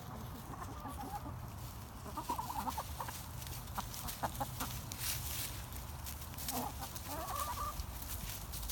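A flock of backyard hens clucking and muttering while they feed, in short bursts about two seconds in and again near the end, with scattered light pecking clicks.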